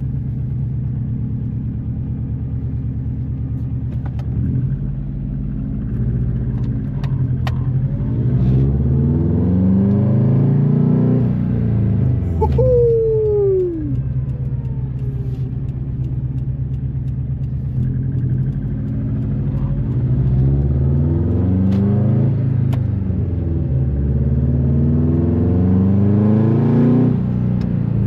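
A 2005 Subaru Impreza WRX STI's turbocharged flat-four runs through a Tomei Expreme Ti exhaust and catless downpipe, heard from inside the car. It holds steady revs, then the pitch climbs in a long pull about five seconds in and again about eighteen seconds in. Near the middle a whistle falls in pitch as the revs drop.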